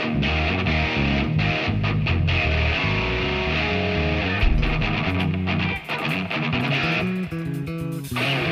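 A band's music led by guitar over a bass line, with a few short breaks in the sound near the end.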